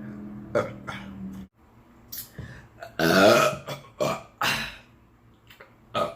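A person burping: a long, low, drawn-out burp over the first second and a half, then a louder burp about three seconds in, followed by a few short ones.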